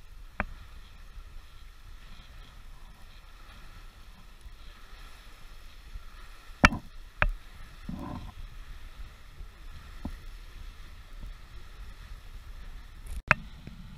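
J-35 sailboat under sail, with water rushing along the hull and wind, in a steady low noise. Several sharp knocks break through it, the loudest about six and a half seconds in and another near the end.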